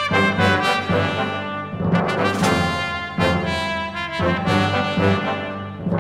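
Background music led by brass instruments, with sustained notes over a regular beat.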